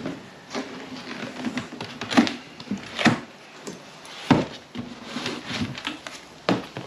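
Large cardboard box being opened by hand: flaps pulled back and folded with scraping and rustling of cardboard, and several sharp knocks and thumps.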